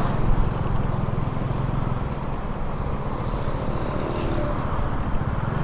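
Small motorcycle engine running steadily while riding along at road speed, a low, even pulsing drone with road noise.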